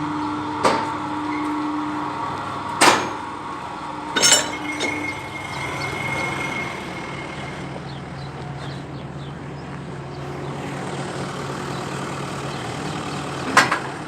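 Tractor engine running steadily, with four sharp knocks spread through.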